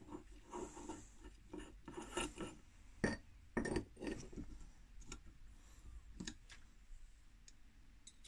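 Small brass filter-housing parts clicking and scraping against each other as they are fitted together by hand, with a sharp knock about three seconds in.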